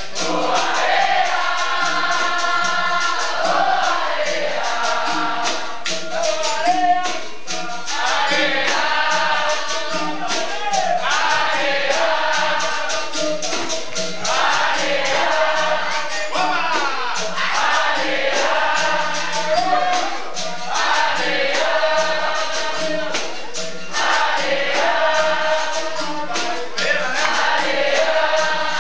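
Capoeira Angola roda music: a group of voices singing phrases together over the steady rhythm of berimbaus and a pandeiro.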